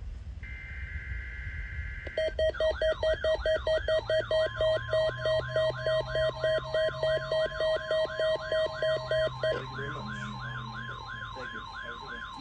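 The last of an EAS/SAME data header, a two-tone digital warble, then alert tones from a weather radio receiver. The receiver gives a loud pulsing beep at about three to four a second, which stops about three-quarters of the way through, and a repeating whooping siren sweep that carries on. From about four seconds in, the steady 1050 Hz NOAA Weather Radio warning tone sounds under them.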